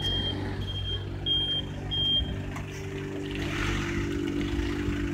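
A vehicle's reversing beeper sounds about four short high beeps, roughly two a second, and stops about two seconds in, over the steady running of its idling engine. A brief hiss follows near the middle.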